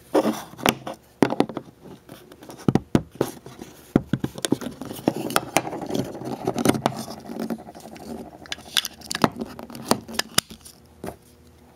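Zippo lighter being handled, its insert slid back into the brass case: many sharp, irregular metal clicks with some scraping.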